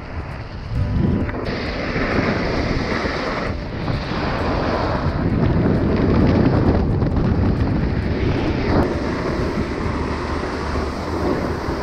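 Wind rushing over the camera's microphone during a fast run down a groomed ski slope, mixed with the scrape of edges turning on spring snow; the noise swells and eases with each turn.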